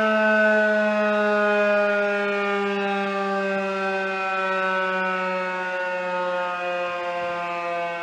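Federal Signal 2001-130 rotating outdoor warning siren winding down: its single tone slowly falls in pitch and grows a little quieter as the rotor slows.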